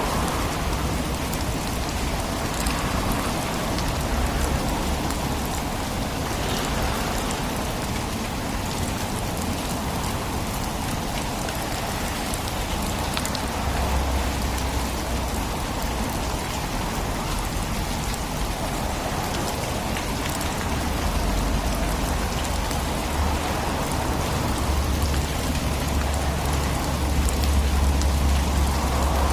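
Steady rain falling on a city road: a dense, even hiss with slow swells, and a low rumble that grows stronger in the second half.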